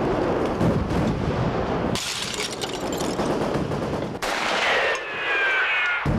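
Battle gunfire: a continuous rattle of automatic and rifle fire with many sharp cracks. Near the end a high, slightly falling tone rises over it.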